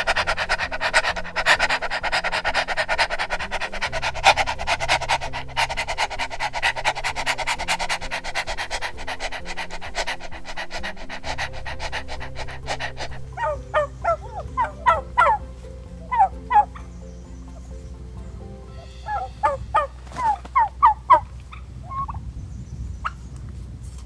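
A dense, rapidly pulsing animal sound for about the first half, then a turkey gobbling in two bursts of short warbling notes, over quiet background music.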